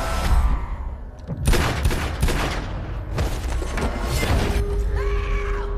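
Film trailer sound design: a deep rumble under dramatic music, broken by a rapid run of sharp hits about a second and a half in and again around three seconds, with a held tone near the end.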